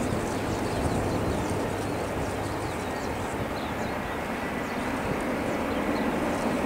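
Airbus twin-jet airliner's turbofan engines at takeoff thrust as it lifts off and climbs away, a steady rushing noise. A thin high whine comes in about halfway and slowly falls in pitch.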